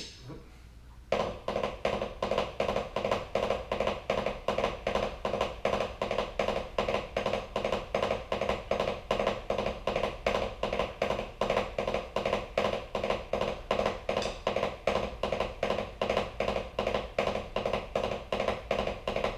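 Drumsticks striking a rubber practice pad in a fast, even stream of strokes with regular accented pulses, starting about a second in: a drumming rudiment exercise of three-note rolls (right-left-right) played in a triplet rhythm.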